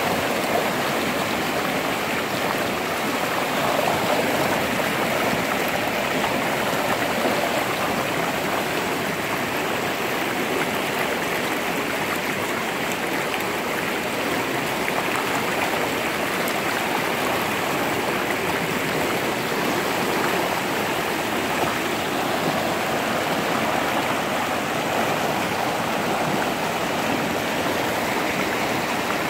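Rain-swollen, muddy river in a small flood after a downpour, its fast water rushing steadily and evenly.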